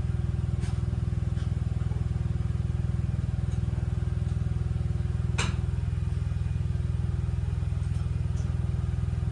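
A small engine running steadily, a low drone with a fast even pulse, and one sharp metallic click about five seconds in.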